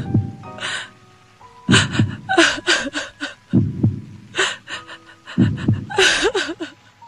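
Sound-effect heartbeat, a low thud about every two seconds, with short breathy bursts over quiet held music tones.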